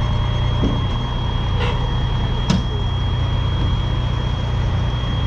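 Vehicle engine idling with a steady low rumble, a steady high-pitched tone over it, and two sharp knocks a little under a second apart near the middle.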